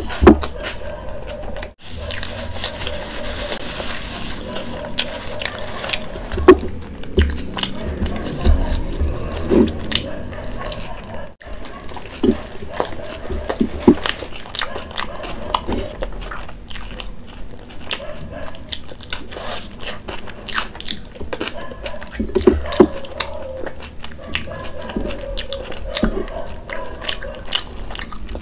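Close-miked eating of a malai chaap roll: biting and wet chewing, with many small mouth clicks and smacks.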